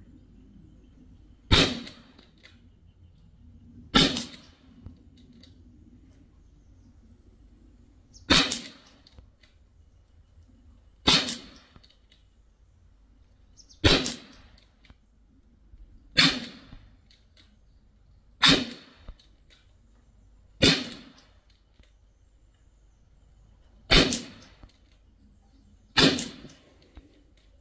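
Ten shots from a Sig Sauer MCX Rattler Canebrake .177 CO2 air rifle, fired slowly about two to three seconds apart. Each shot is a sharp crack with a short fading tail.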